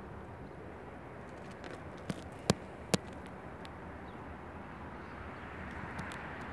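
CSX freight train of coal hopper cars rolling past, a steady rumbling noise, with three sharp clicks about two to three seconds in.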